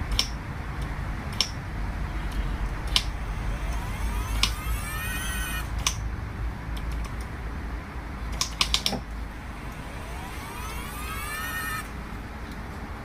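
Sharp single clicks every second or so, with a quick cluster of clicks near the middle, over a steady low hum; twice a rising whine climbs for about two seconds and cuts off suddenly, typical of the DQ200 mechatronic's electric hydraulic pump motor spinning up to build pressure during bench testing.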